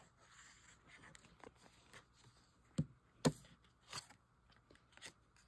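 Paper and card being handled and pressed down on a craft table: faint rustling with a few sharp clicks and taps, the loudest a little past halfway through.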